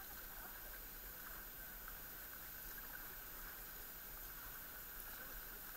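Kayak being paddled on calm sea: faint, steady lapping and swishing of water from the paddle and the hull.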